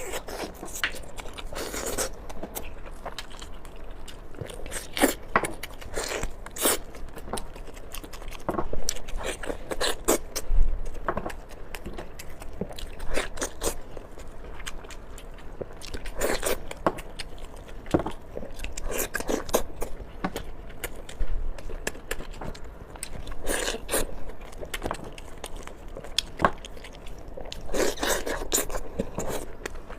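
A person biting into and chewing a small pork chop, with irregular short clicks and a few louder clusters of bites now and then.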